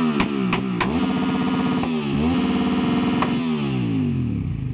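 Suzuki SV V-twin motorcycle engine revved hard while standing still: it climbs to high revs and holds there, dips briefly, climbs again, then falls back toward idle. Three sharp cracks sound in the first second and one more a little after three seconds.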